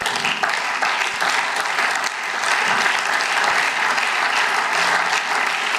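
Members of a parliament applauding: a steady round of clapping from many hands that starts at once.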